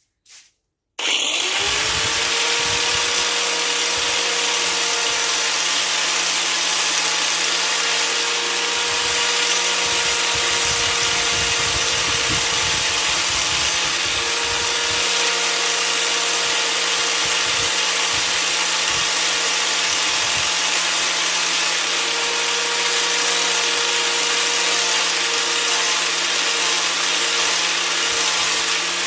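An electric power tool switched on, spinning up, running steadily with a hissing whine for almost half a minute, then switched off and winding down near the end.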